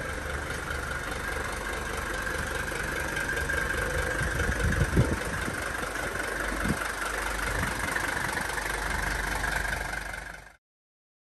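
Mercedes-Benz 300TD's five-cylinder diesel engine idling steadily with a diesel knock, with a few low thumps around the middle. The sound cuts off suddenly near the end.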